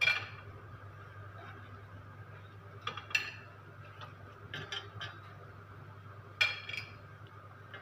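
Metal tongs clinking against a frying pan as stuffed chillies are set into the sauce: a sharp clink at the start, another around three seconds in, a few around five seconds, and the loudest near six and a half seconds. A steady low hum runs underneath.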